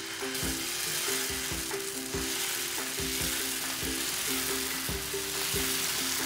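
Dosa batter sizzling steadily on a hot pan as a ladle spreads it in circles, with low background music playing a stepping melody underneath.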